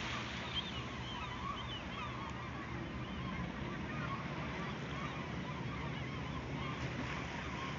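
A seabird colony calling, many birds at once in a dense, overlapping chorus of short honking calls, over the steady low hum of a boat's engine.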